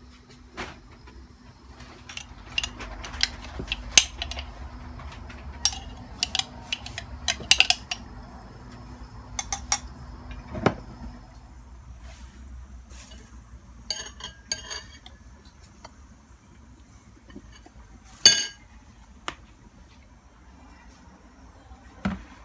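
Kitchen clatter: dishes and cutlery clinking and knocking in scattered sharp clicks, with one louder ringing clink about eighteen seconds in.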